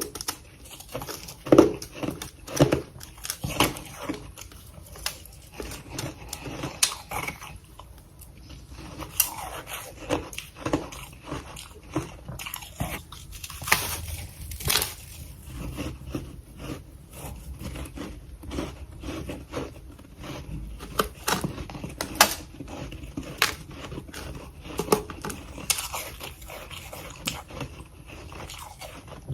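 Close-miked crunching of freezer frost being bitten and chewed: irregular crisp crunches and crackles, several a second, with a few louder bites.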